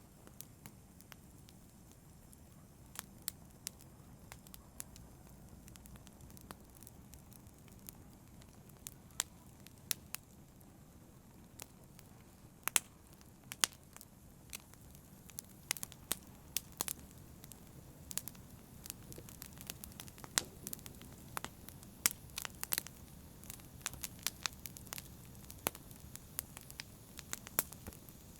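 Wood fire burning with a low steady rush and sharp, irregular crackles and pops, which come more often in the second half.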